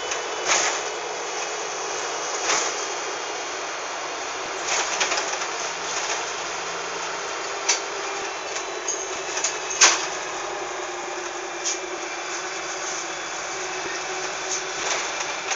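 Steady running noise inside a LiAZ-5256.25 city bus, with scattered short knocks and rattles, one louder knock about ten seconds in.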